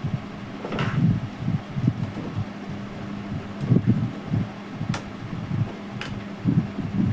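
Luminous home inverter humming steadily as it charges the battery, its cooling fan running, with uneven low rumbling that comes and goes and two sharp clicks a second apart in the second half.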